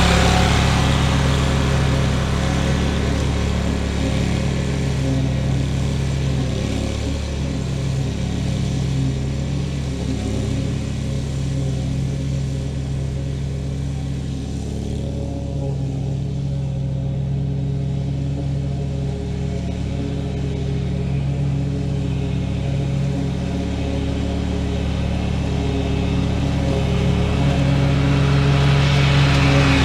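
An engine running steadily, easing off somewhat in the middle and growing louder again near the end.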